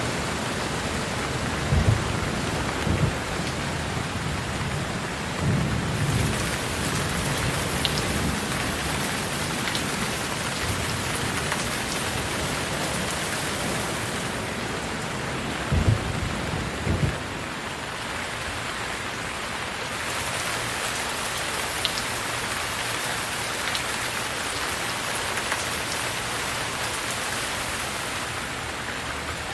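Steady rain falling, with a few short low rumbles of thunder; the strongest comes about sixteen seconds in.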